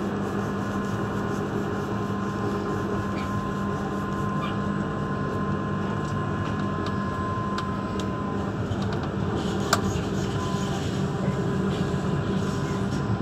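Class 399 tram-train running at speed, heard from inside the driver's cab: a steady hum from the traction equipment over the rumble of the wheels on the rails, with a few sharp clicks, the loudest about ten seconds in.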